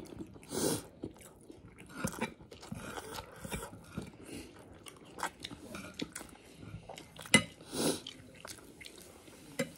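Close-up chewing of a mouthful of chicken biryani, with irregular wet mouth smacks and a sharp click about seven seconds in.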